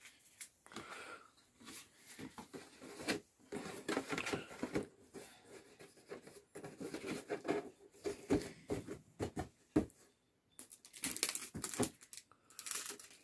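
Cardboard cake box being handled and its flaps folded shut, with soft rustles, scrapes and taps. Near the end packing tape is pulled off the roll in two rasping tears, the loudest sounds.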